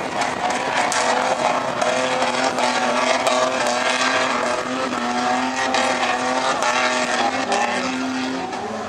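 A 4x4's engine running hard under load on sand, its pitch wavering up and down, with scattered ticks and crackles over it.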